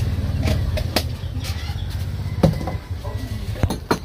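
Irregular clicks and knocks of kitchen utensils against dishes during food preparation, the sharpest knock about two and a half seconds in, over a low hum that fades about three seconds in.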